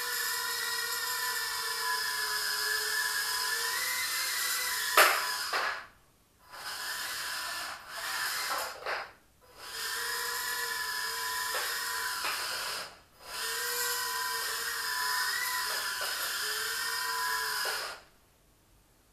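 Eachine Turbine QX70 micro quadcopter's brushed motors and propellers whining, the pitch wavering as the throttle changes. A sharp knock comes about five seconds in. The motors cut out briefly three times and spin back up, then stop near the end.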